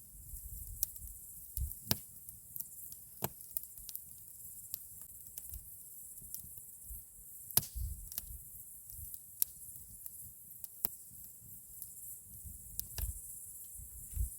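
Wood campfire crackling, with irregular sharp pops and snaps from the burning logs over a low steady rumble.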